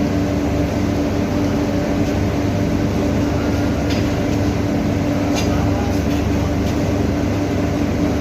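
Steady industrial drone with a constant hum and low rumble: an induction furnace installation with its bag-filter dust collector running. A few faint ticks come near the middle.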